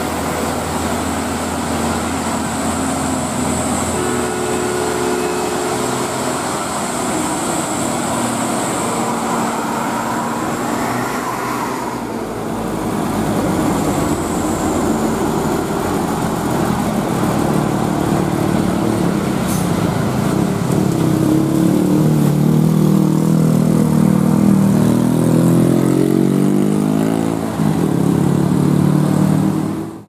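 Heavy trucks' diesel engines labouring up a hill as they pass close by. In the last few seconds one engine's pitch rises again and again as it revs, at its loudest just before the sound cuts off suddenly.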